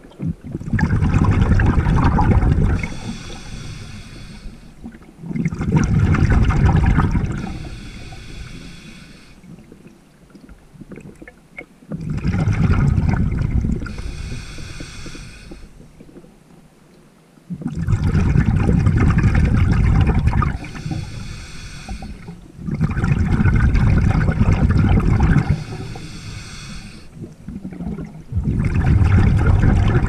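A scuba diver breathing underwater, picked up by the camera: loud bubbling rushes come about every five to six seconds, each lasting two to three seconds, with a longer pause near the middle.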